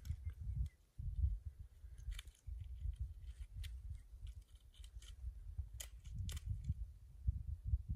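Wind buffeting the microphone, an uneven low rumble, with a few faint sharp clicks scattered through it.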